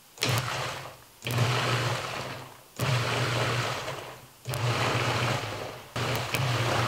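Food processor pulsing hot, chunky peach barbecue sauce: five short runs of the motor and blade, each starting suddenly and running about a second, with the sauce churning in the bowl.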